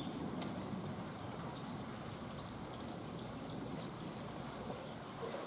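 Steady outdoor background rush with faint, high bird chirps and short whistles scattered through it.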